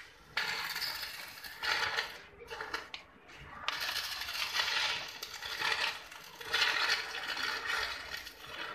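Stick (arc) welding on a steel-bar frame: the arc crackles and hisses in several runs of a second or two, with short breaks as the welder pauses between them.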